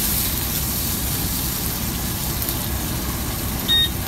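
Chicken searing in oil in a steel paella pan over a commercial gas burner: a steady sizzle over a low rumble. A short high electronic beep sounds near the end.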